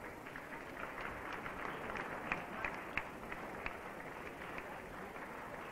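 Audience applauding, a dense patter of many hands clapping that swells up at the start and then holds steady, heard dull and thin on an old broadcast recording.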